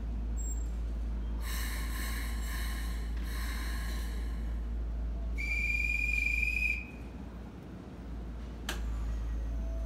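A railway whistle blown once, a steady high-pitched blast of about a second and a half at a platform beside a stopped Keikyu 1000-series train, preceded by two shorter buzzy tones. A steady low hum from the standing train underlies it, and a sharp click comes near the end.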